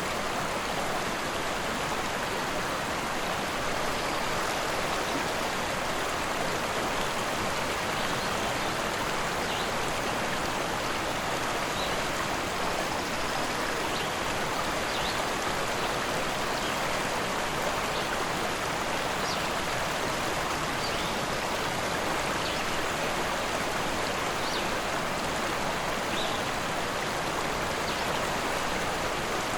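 A rushing river: a steady, even flow of water noise with no breaks.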